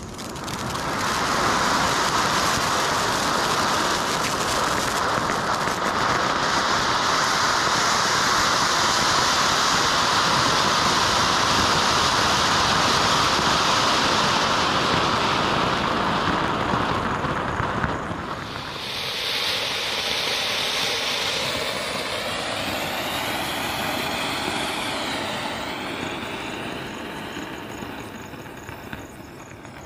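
Flower pot (anar) fountain firework spraying sparks: a loud steady hiss that builds to full force within about two seconds of lighting. About 18 s in it dips, then goes on with a wavering, swirling quality and fades away near the end as the fountain burns out.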